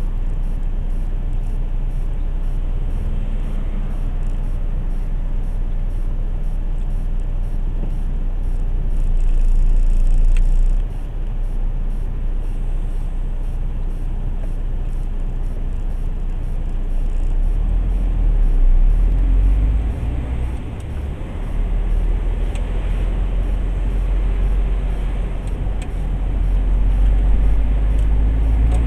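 Diesel engine of a MAN truck running with a steady low rumble, heard from inside the cab. It swells louder three times, the first two ending in a sudden drop, as the truck moves off from a standstill.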